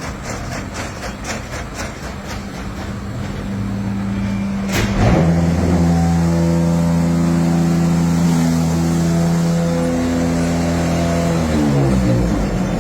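Automatic pumice block production machine running through part of its cycle: a rapid clatter, a sharp bang about five seconds in, then a steady machine hum for about six seconds that drops in pitch and winds down near the end.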